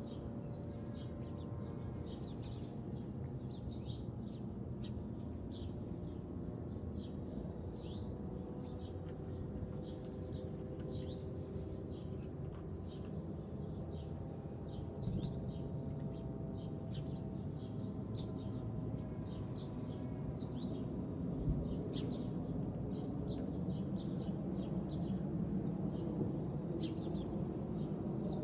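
Small birds chirping, short high chirps several a second throughout, over a steady low hum that grows louder in the second half.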